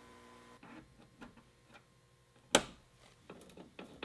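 Plastic front grille of a Toyota Tacoma being pushed back into its mounts: scattered small clicks, one sharp snap about two and a half seconds in, then a quick run of small clicks near the end.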